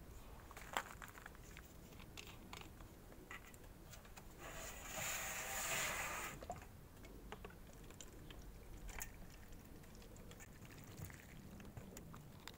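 Water poured from a plastic watering can's spout into a plastic drinking bottle, a rushing splash lasting about two seconds midway. Light clicks and taps of the plastic bottle and cap being handled come before and after, with one sharper click about a second in.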